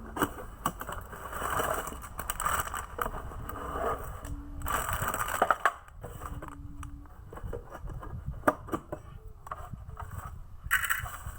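Irregular scraping and crackling with scattered sharp clicks, the sound of a toy birdcage and its parts being handled.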